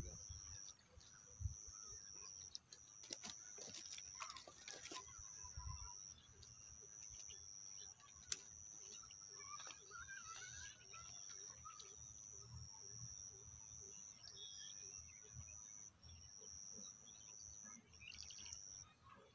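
Faint outdoor ambience: a high, steady chirring that breaks off every second or two, a few soft bird chirps, and a cluster of soft clicks about three to five seconds in.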